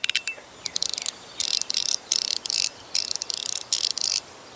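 Runs of rapid, high-pitched mechanical clicking from a handheld fidget toy, coming in bursts of about half a second with short pauses between them, like a small ratchet.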